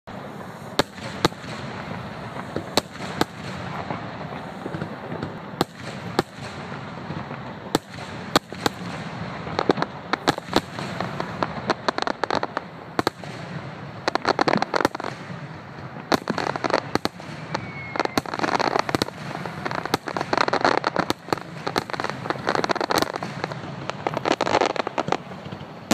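Aerial fireworks finale: shells bursting in an irregular series of sharp bangs, with stretches of dense crackling that set in about halfway through and grow thicker toward the end.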